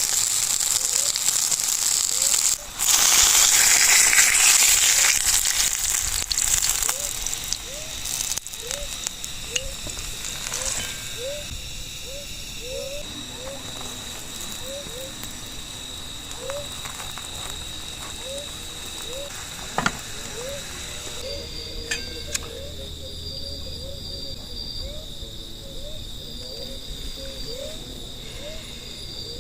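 Night insects chirring in steady high tones, with a short rising call repeated just over once a second. A loud hissing, crackling noise fills the first several seconds and then dies down.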